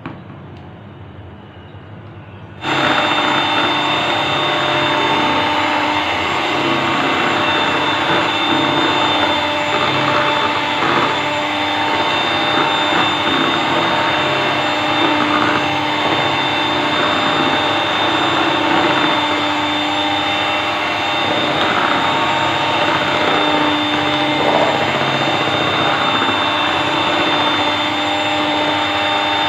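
Electric mixer switched on about three seconds in, then running steadily with a motor whine as it whips cream for ice cream.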